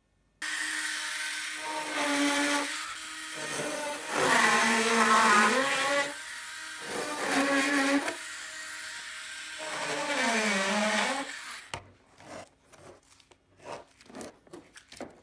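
Handheld rotary tool (Dremel type) switched on with a high whine that sags in pitch four times as the bit is pressed into the plywood template on the fuselage, then switched off suddenly. A few light clicks and taps follow as the tool is set down.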